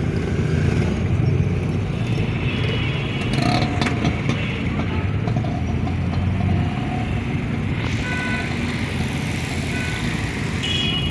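Road traffic noise: vehicle engines running in a steady low rumble, with a few short higher tones over it.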